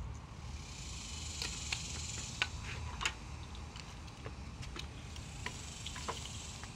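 Paint roller worked over a step and in a metal paint tray: a soft hiss with a scattered run of light clicks and taps.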